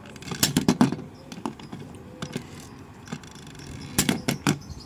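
Small hard plastic toy figures knocking and clattering on a hard surface as they are handled: quick irregular clicks and taps, bunched about half a second in and again around four seconds in.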